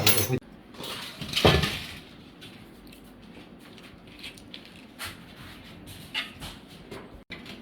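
Plates and cutlery being handled as food is served: a sharp knock at the start, a louder thump about a second and a half in, then scattered light clicks and clinks.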